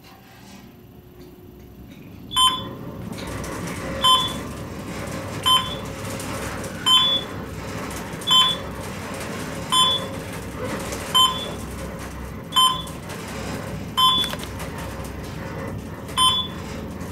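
Schindler elevator car descending, its floor-passing beep sounding once at each floor, about every second and a half, some ten times. Each beep is short and two-toned, over the steady hum and rumble of the moving car.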